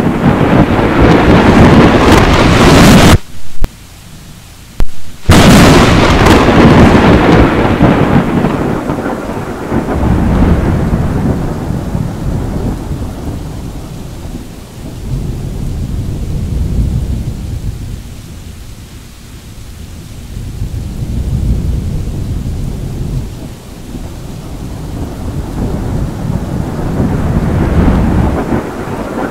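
Thunder: a loud rumble cuts out abruptly about three seconds in. After a two-second drop-out, a sharp crack of a close lightning strike rolls into a long rumble that fades away over about fifteen seconds. Another rumble swells near the end.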